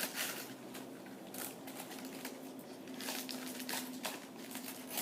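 Person eating chicken wings close to the microphone: irregular crunchy, crinkly chewing sounds, four or five short bursts, over a faint steady hum.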